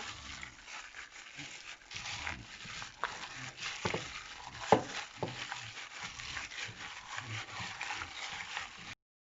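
Raw chicken pieces being mixed in a thick, wet marinade of gram flour, rice flour, egg and oil: continuous wet, sticky mixing with irregular clicks and slaps, cutting off suddenly near the end.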